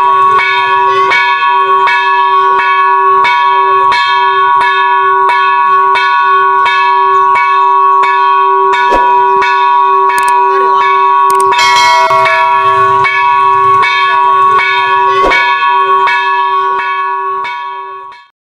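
Temple bell rung continuously by its clapper, about two strikes a second over an unbroken ringing tone, fading out near the end.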